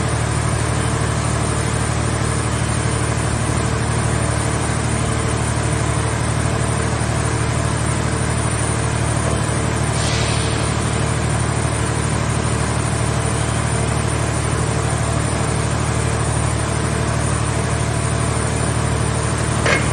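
Engine of a portable car-shell baler running steadily at a constant speed. There is a brief hiss about halfway through and a sharp knock near the end.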